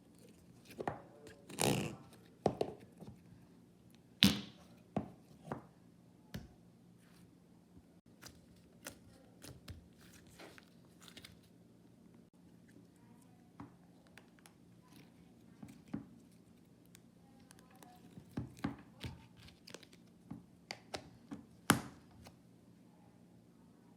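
Slime being squeezed, stretched and poked by hand: scattered sticky clicks and pops at irregular intervals, a few of them louder.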